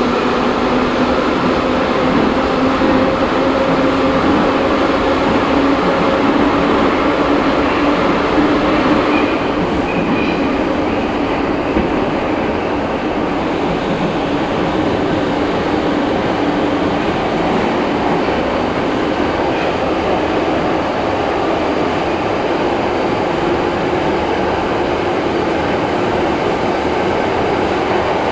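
Moscow Metro train running between stations, heard inside the carriage: a steady rumble of wheels on track with a low whine that fades out about a third of the way through.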